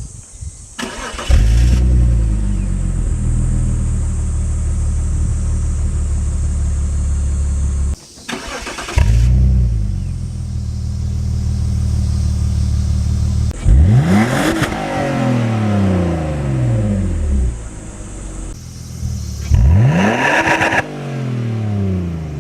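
BMW E46 325i inline-six engine and exhaust starting up and idling steadily. The sound cuts off about eight seconds in and the engine starts again. It is then revved twice, the pitch rising sharply and falling back to idle each time.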